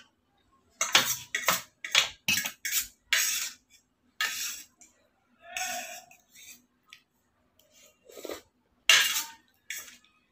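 Steel spoon and fork scraping and clinking against a stainless steel plate while gathering up noodles. The sound comes as a series of short strokes, several in quick succession in the first few seconds, then sparser, with a loud one near the end.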